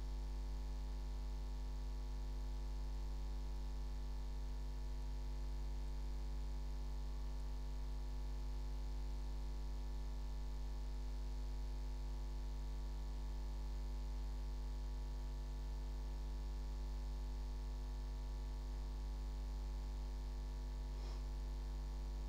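Steady electrical mains hum: a low drone with many evenly spaced higher tones stacked above it.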